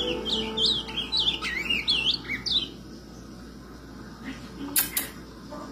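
Ultramarine grosbeak (azulão) singing a fast warbling phrase of up-and-down notes for about two and a half seconds, then falling quiet. Two sharp clicks near the end.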